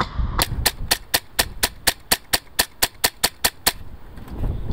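Airsoft rifle firing a rapid string of single shots, about four sharp clicks a second, stopping a second before the end. Wind rumbles on the microphone throughout.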